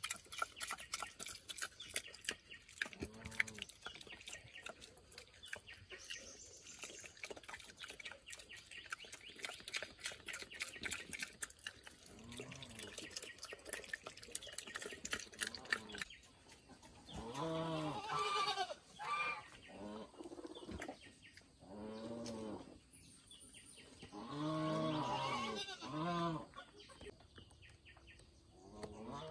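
A farm animal calling repeatedly: drawn-out pitched calls, each about a second long, a few scattered early on and coming thick over the last dozen seconds. Under the first half runs a rapid clicking or crackling.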